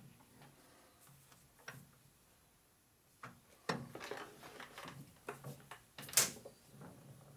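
Scattered metal clicks and clunks of lathe parts being handled and adjusted by hand, sparse at first and busier in the second half, with one sharp clack about six seconds in.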